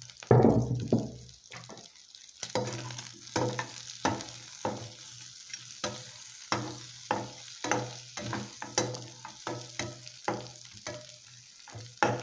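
Beef and onions sizzling in a pan while a spoon stirs and scrapes through them in repeated short strokes, somewhat more than one a second. A louder clatter lasting about a second comes just after the start.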